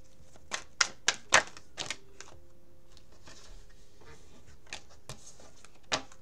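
Tarot cards being handled and shuffled, heard as a run of sharp card clicks and snaps in the first two seconds. A couple of isolated clicks follow near the end.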